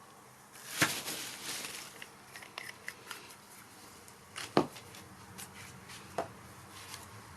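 Handling noise of repair work: a sharp knock about a second in, a louder one a little past halfway and a smaller click near the end, with light rustling and small ticks in between.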